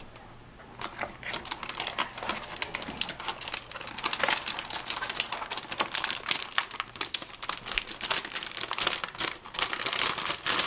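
Metallized anti-static bag crinkling and crackling as it is handled with a motherboard inside, the crackles getting denser from about four seconds in.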